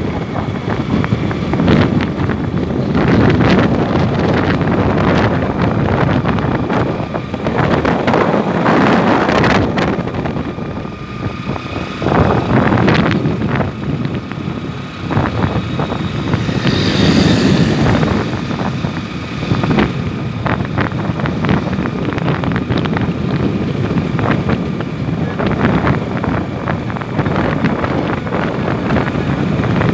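Wind buffeting the microphone of a vehicle moving at highway speed, over a steady rush of road noise. The rush swells and dips in gusts, with a brief high hiss a little past halfway.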